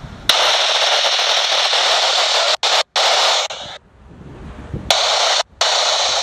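Railroad scanner radio breaking squelch with loud static hiss and no voice. It comes on abruptly for about three and a half seconds with two brief dropouts, cuts off, then returns about a second later.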